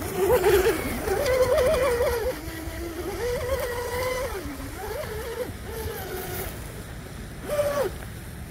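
An electric RC boat's SSS 2960 3000kv brushless motor running at speed across the water, its whine stepping up and down in pitch with the throttle and growing fainter as the boat pulls away. Near the end there is a brief louder burst of whine that falls in pitch.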